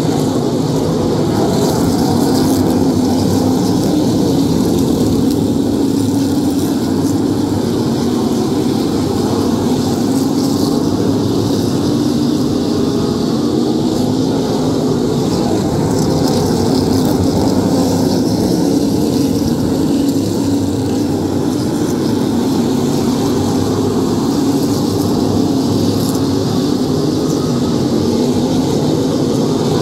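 A pack of Modified race cars' V8 engines running steadily as the field circles the oval.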